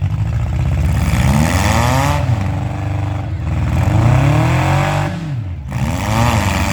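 Demolition derby car engines revving hard and easing off over and over, several at once, as the cars push against each other. The pitch climbs and falls in repeated surges, with a short lull about five seconds in.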